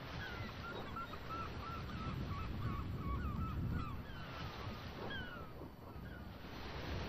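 A rapid string of short, quavering bird calls, thinning out after about five seconds, over a steady low rumble.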